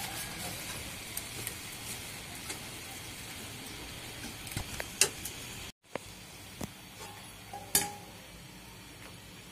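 Flower pitha batter on an iron mould frying in hot oil in a steel wok, sizzling steadily, with a few sharp clinks of metal utensils against the wok. The sound cuts out for an instant about six seconds in and then carries on a little quieter.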